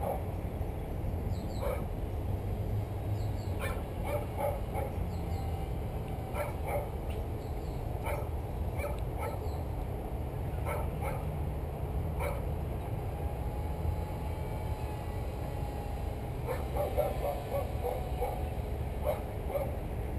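A dog barking in short, irregular barks, now single and now in quick runs, over a steady low rumble like wind on the microphone.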